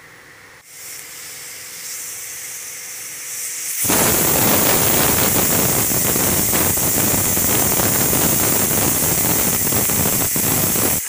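Stovetop pressure cooker whistling: a thin high hiss of escaping steam builds for a few seconds, then about four seconds in the whistle goes off as a loud, steady rush of steam that lasts about seven seconds and cuts off suddenly. The cooker has reached full pressure and let off its whistle.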